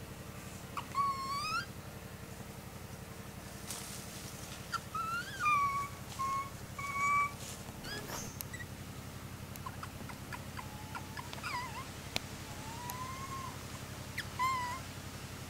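Infant long-tailed macaque crying as it begs to nurse: short whimpering calls that rise and then fall in pitch, about seven in all, three of them close together around the middle. A steady low hum runs underneath.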